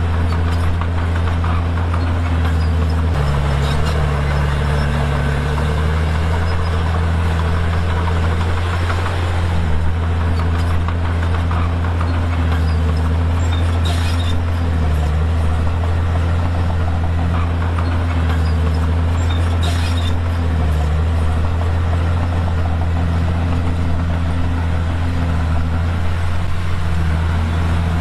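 Komatsu D51PX bulldozer's diesel engine running hard under load. Its pitch sags and recovers every few seconds as the blade pushes stone.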